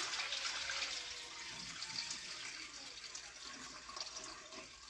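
Starchy rinse water being poured off rice into a sink, a steady splashing pour that gradually tapers off toward the end.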